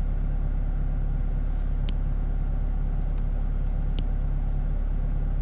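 Steady low background rumble with a constant hum, and two faint taps of a stylus on a tablet screen, about two seconds apart.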